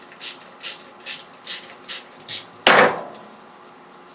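A hand cutting tool working through silicone radiator hose in short, regular strokes, about two to three a second, followed by one loud thump about two and a half seconds in.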